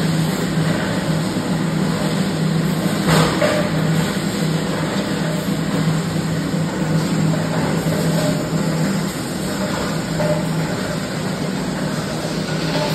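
A running automatic blow moulding machine giving a steady low hum with a broad mechanical noise over it. A short burst of noise stands out about three seconds in.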